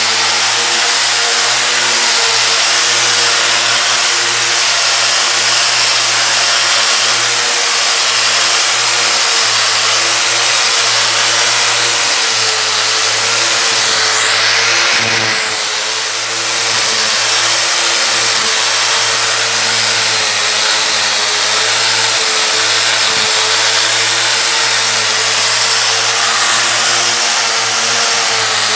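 Electric angle grinder running steadily at speed while dry-polishing a marble floor with an 800-grit resin diamond polishing pad, the motor's whine wavering slightly in pitch over the hiss of the pad on stone. The sound dips briefly about halfway through.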